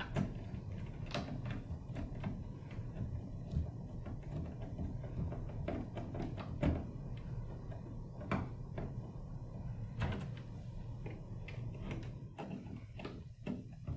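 Scattered small clicks and knocks of a screwdriver working the screw terminals of an MPPT solar charge controller and cable ends being pushed into them, over a steady low hum.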